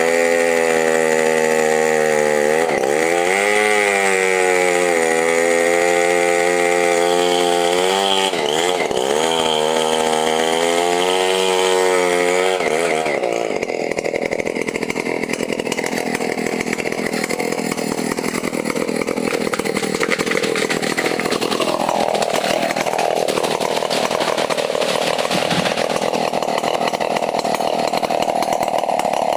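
Chainsaw running at high revs, its pitch sagging and recovering twice as the chain bites into wood. About 13 seconds in it turns to a rougher, noisier sound as it keeps cutting.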